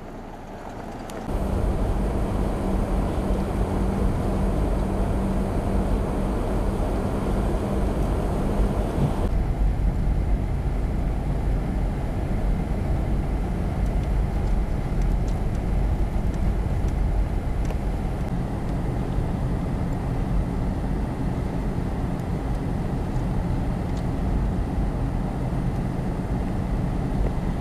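Steady low rumble of a vehicle driving on a snow-covered road, heard from inside the cabin: engine and tyre noise with a steady low hum, setting in about a second in.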